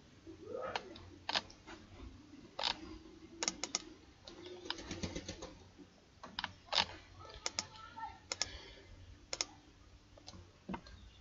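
Irregular clicks and taps from a computer keyboard and mouse, a dozen or so scattered sharp clicks.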